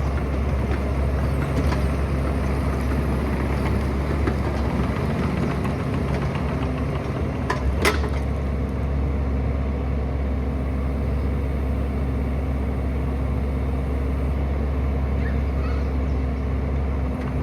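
Excavator's diesel engine running steadily, with a single sharp knock about eight seconds in.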